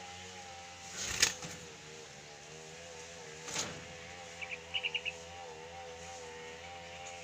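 A steady drone with a slowly wavering pitch, like a running engine, lies under the whole stretch. Two sudden flapping thumps, the louder about a second in and a softer one about three and a half seconds in, fit a dove's wings as it shifts between perches. A quick run of about six high bird chirps comes about five seconds in.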